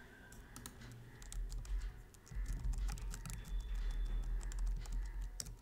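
Typing on a computer keyboard: quick, irregular key clicks, with a low rumble underneath.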